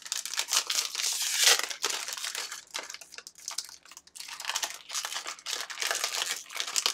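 Plastic LEGO minifigure blind bag crinkling and rustling as hands squeeze it and work it open, in an irregular run of crackles with the loudest burst about a second and a half in.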